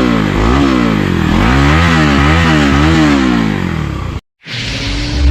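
Bajaj Pulsar NS200 single-cylinder engine revved again and again through its stock underbelly exhaust, drilled with holes to make it louder, the pitch rising and falling about twice a second at the fastest. The sound cuts off abruptly about four seconds in and gives way to a steadier engine sound with a level hum.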